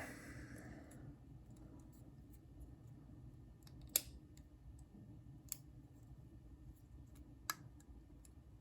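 Three small, sharp metal clicks a second or two apart as a Torx driver and pocket-knife parts are handled while screws are driven in during reassembly, over a quiet room hum.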